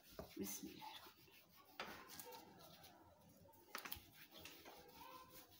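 Near silence with the faint rubbing of a rolling pin flattening a crustless slice of bread on a stone counter, and a few soft knocks.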